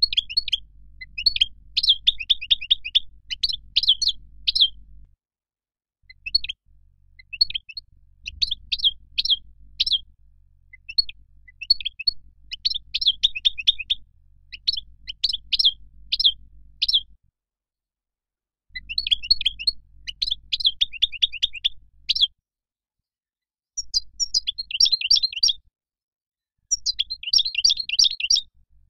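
European goldfinch singing: fast, liquid twittering phrases of high chirps, delivered in bursts a few seconds long with short breaks between them.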